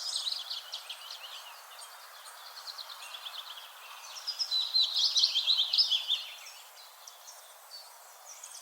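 Birds chirping and trilling over a faint, steady light-breeze hiss, with a louder run of rapid chirps from about four to six seconds in.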